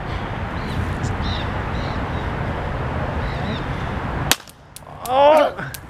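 Steady wind-like rumble, then about four seconds in a single sharp pop as a taser fires its darts, followed by several sharp clicks and a man's shout of "Oh!".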